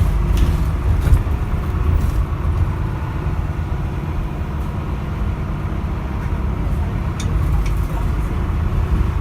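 Stagecoach London bus running, heard from inside the saloon: a steady low engine and road rumble, with a few light rattles or clicks.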